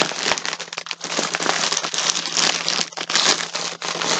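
Plastic packaging crinkling and rustling close to the microphone as a skein of yarn is handled, a continuous dense crackle.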